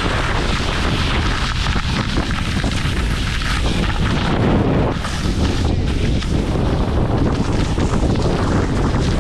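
Heavy wind buffeting the camera's microphone with a steady low rumble, from riding downhill at speed, easing briefly about five seconds in.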